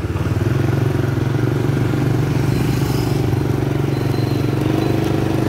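Small motorbike engine running steadily at riding speed, heard from the rider's seat.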